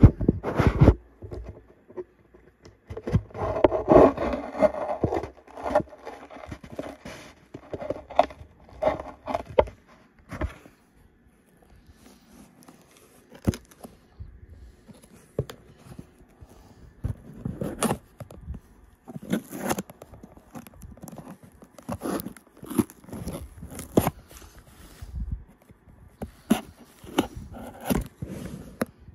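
Handling and opening a toy's cardboard and plastic packaging: scraping, crackling and tearing, with many scattered knocks and clicks. A denser stretch of rustling comes a few seconds in.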